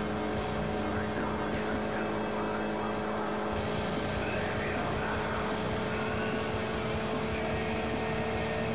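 A vehicle engine running steadily at high highway speed, holding an even drone that does not rise or fall, with wind and road noise over it.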